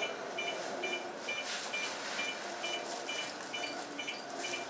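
Electronic beeper sounding short double-tone beeps about twice a second, over the steady background of a train standing at a station platform, with a few short hisses of air.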